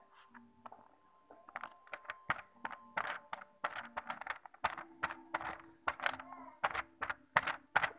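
Cotton bud dabbing paint onto paper in quick, irregular taps, several a second.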